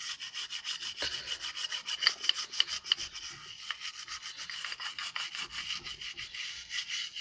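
A small brush scrubbing the circuit board of a Honda CB Trigger digital speedometer, cleaning off water damage, in rapid, even scratchy strokes. A few sharper clicks come about two to three seconds in.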